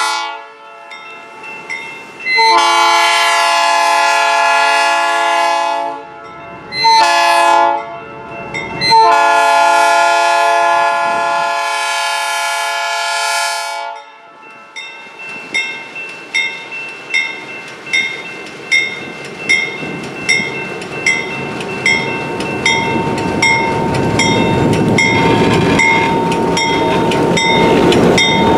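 Diesel locomotive's multi-chime air horn blowing for a grade crossing: the tail of one blast, then a long blast, a short one and a final long one ending about halfway through. After it, a crossing bell rings about three strokes every two seconds while the locomotive's engine and the passenger cars' wheels grow louder as the train passes close by.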